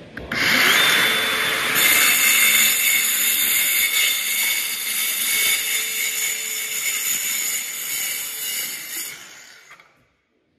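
DeWalt cordless compact circular saw cutting into the floor. The blade runs under load for about nine seconds, then fades away near the end.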